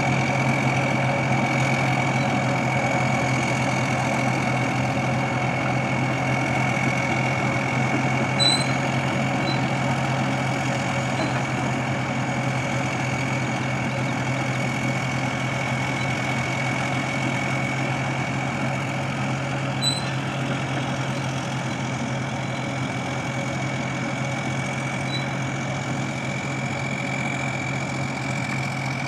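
Caterpillar D9 crawler dozer's diesel engine running steadily as the machine tracks away, with a steady high whine over the engine sound, slowly growing quieter. Two brief metallic clicks, about eight seconds in and again near twenty seconds.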